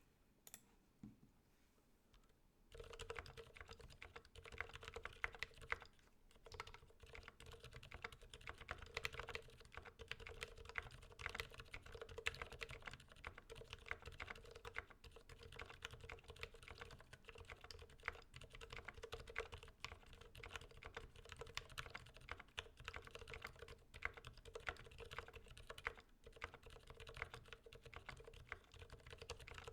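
Typing on an IDOBAO ID80 75% hot-swap keyboard fitted with lubed Gateron silent black linear switches and PBT keycaps; the keystrokes are quiet. There are a few scattered keypresses at first, then fast, continuous typing from about three seconds in.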